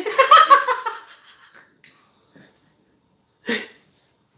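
A woman laughing, loudest in the first second and tailing off into breathy giggles, with one more short breathy laugh near the end.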